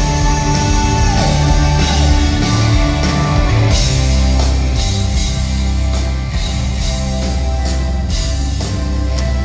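Live rock band playing loud and steadily: electric guitar, bass guitar, drum kit and keyboards, heard from the audience in a theatre.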